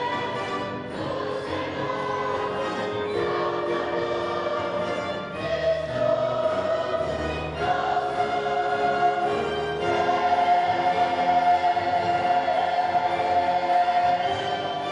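Mixed adult and children's choir singing a Christmas cantata with wind-band accompaniment of clarinets and brass. About ten seconds in the music swells into a loud, long held note.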